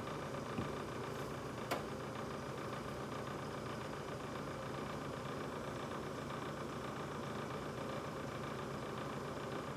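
New GE refrigerator running with a steady mechanical hum, with two small clicks in the first two seconds.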